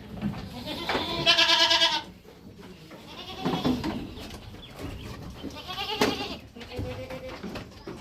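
Goats bleating: one loud, quavering bleat about a second in, then fainter bleats around four and six seconds.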